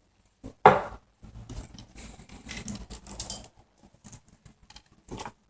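Kitchen handling noise: a sharp knock about half a second in, then a couple of seconds of irregular clatter of dishes and utensils, with a few light clicks near the end.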